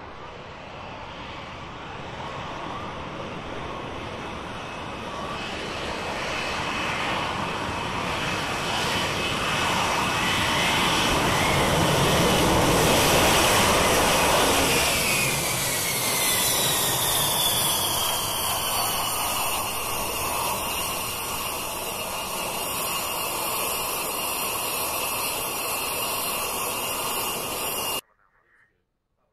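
F-35B Lightning II jet engine and lift fan during a rolling vertical landing, growing louder as the jet comes in and peaking about halfway through. After that a high whine falls in pitch while the noise stays loud, and then the sound cuts off abruptly near the end.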